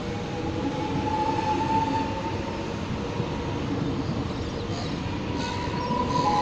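X'Trapolis electric suburban train departing and rolling past along the platform. Its cars make a steady rumble, with a thin steady whine on top that fades after the first couple of seconds and comes back near the end.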